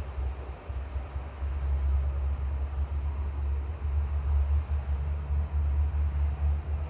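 Gusty storm wind buffeting the microphone: a low, unsteady rumble that swells and dips.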